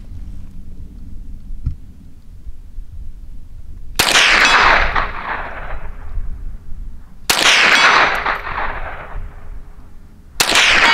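Three shots from a Sig Sauer 522 semi-automatic .22 Long Rifle rifle, about three seconds apart, each trailing off in a long echo. Low wind rumble underneath.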